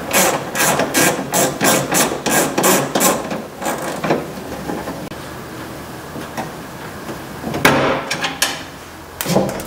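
Hand ratchet with a 10 mm socket clicking in quick strokes, about four a second, as a bolt inside a car door is backed out. The clicking stops about four seconds in, and a few brief rattles follow near eight seconds and near the end.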